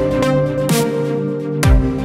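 Progressive house track: held synth chords over a bass line, with a heavy kick drum hit near the end.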